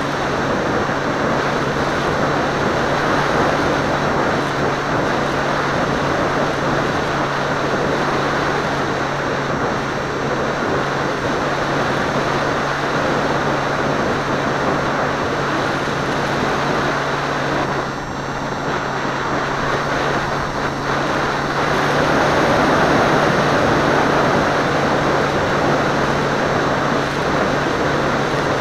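Seawind seaplane in flight heard from its onboard camera: a steady low motor-and-propeller hum under a heavy rush of wind on the microphone. The sound dips briefly about two-thirds of the way through, then comes back louder.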